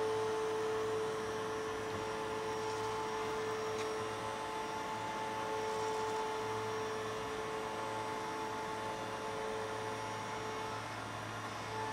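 CNC milling machine cutting hot-rolled steel plate with an 8 mm four-flute carbide end mill at full feed. It is a steady hum with a clear held tone, which drops away shortly before the end.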